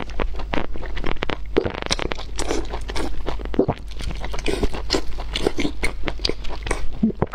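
Close-up mouth sounds of a person biting and chewing fatty, rolled sheep intestines: a dense run of irregular wet clicks and smacks.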